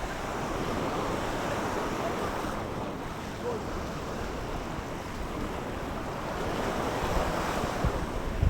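Sea waves washing onto the beach, swelling about a second in and again about seven seconds in, with wind rumbling on the microphone.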